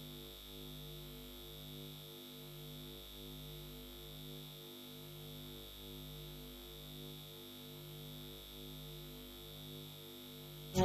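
Quiet low synthesizer drone, a few stacked tones swelling in an even pulse a little faster than once a second, over a thin steady high tone.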